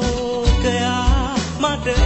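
A Sinhala Christian devotional song: a singer holds long, wavering notes that slide between pitches over a band with a steady beat.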